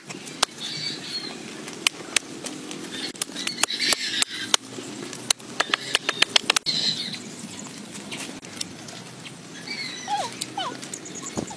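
Roast pork with crackling skin being cut and torn apart on a board with a knife: a dense run of sharp cracks and clicks over the first seven seconds. Near the end come a few short whining sounds that rise and fall in pitch.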